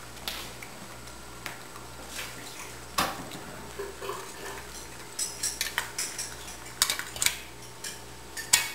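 Metal muffin tin clattering and knocking as a dog noses and shifts the balls in its cups to get at treats underneath. Scattered knocks at first, coming in quick clusters in the second half, the loudest near the end.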